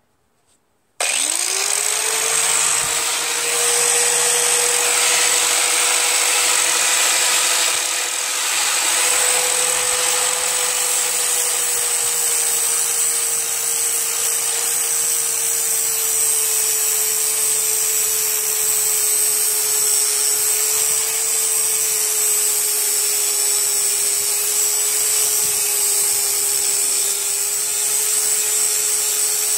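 Ryobi angle grinder switched on about a second in, spinning up to a steady high whine, then running with a rasping grinding noise as its flap disc sharpens the edge of a steel lawn mower blade.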